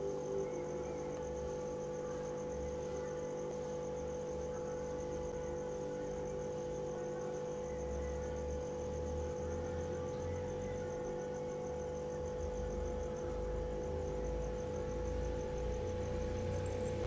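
Steady background hum with a fast, continuous high-pitched trill of insects such as crickets over it, and a low rumble that swells and fades, strongest in the second half.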